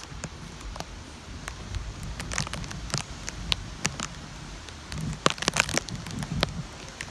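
Rain falling, with scattered raindrops tapping close by in sharp irregular ticks that come thickest about two and a half seconds in and again around five to six seconds, over a steady low rumble.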